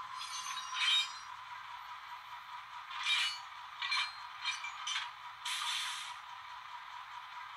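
Several short metallic clinks and scrapes from the HO scale model railroad layout, over a steady high hum.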